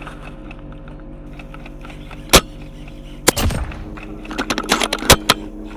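Shots from an HFC VSR-11S spring-powered bolt-action airsoft sniper rifle, heard as sharp snaps. A loud one comes about two seconds in and another about a second later. Then there is a quick run of clicks and snaps, with a second loud snap near the end.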